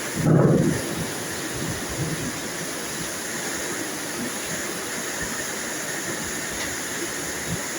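Steady rain with a short, low rumble of thunder about half a second in.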